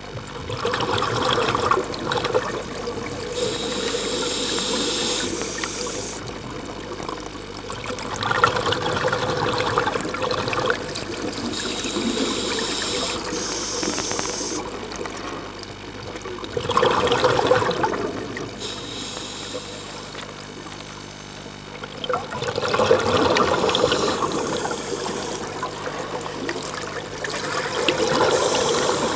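Scuba diver breathing through a regulator, heard underwater: bursts of exhaled bubbles alternating with a hissing inhale, repeating every several seconds.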